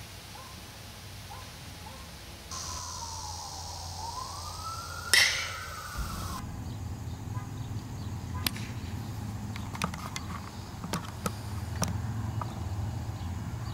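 A driver's clubhead striking a golf ball off the tee: one sharp crack about five seconds in. Behind it is a wailing tone that slides down and back up, and several fainter clicks follow later on.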